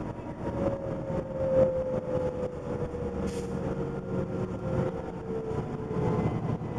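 Interior of a 1998 New Flyer D30LF diesel transit bus under way: engine and drivetrain running with body rattle, and a whine that slowly falls in pitch. A brief hiss about three seconds in.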